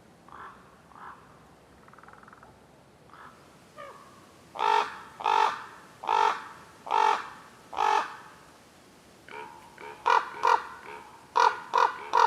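Common ravens calling: a couple of faint calls, then five loud calls in an even series about a second apart, followed near the end by a quicker run of shorter calls.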